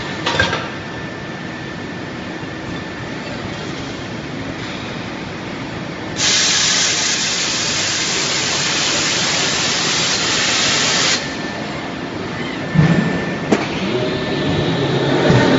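Forging-line machinery running with a steady din. About six seconds in, a loud hiss starts suddenly, lasts about five seconds and cuts off. A few sharp metallic knocks and clatter follow near the end.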